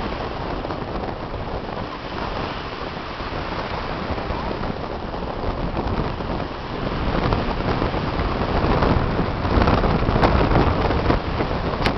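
Wind buffeting the microphone: a steady rushing noise that grows louder in the second half.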